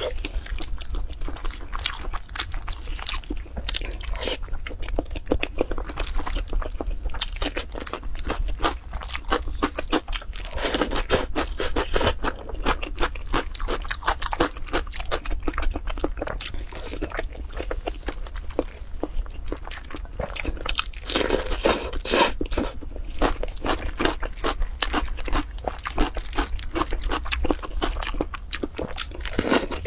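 Eating sounds: wet chewing and crunching, with the crackle of shrimp shells being pulled apart by gloved hands and the rustle of plastic gloves. Dense, irregular clicks run throughout, with louder spells of crunching about a third and two-thirds of the way through.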